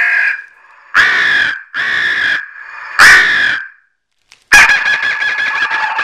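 Boom Blasters Bird Sounds wireless car horn playing recorded bird calls through its horn speaker. There are four loud separate calls about a second apart, then after a short break a continuous rapid chatter of calls.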